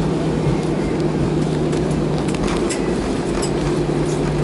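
Airliner cabin noise as the jet rolls along the runway after touchdown: a steady engine rumble with a low, even hum, and a few light clicks and rattles from the cabin.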